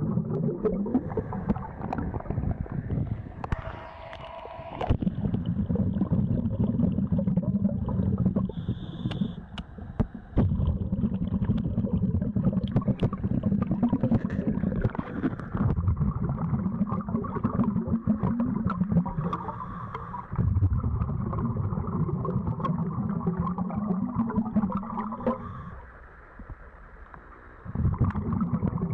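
Scuba diver's regulator exhaust heard underwater: long bubbling rumbles about every five seconds, each followed by a brief quieter pause for the inhalation, the longest pause near the end.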